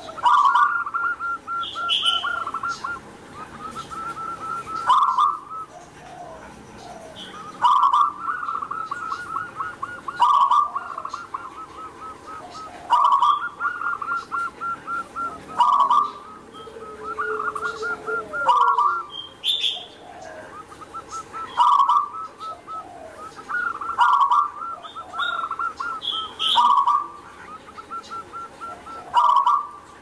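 Zebra dove (perkutut) singing its rolling coo: a quick run of short cooing notes ending in a louder note, the phrase repeated about every two and a half to three seconds, eleven or twelve times.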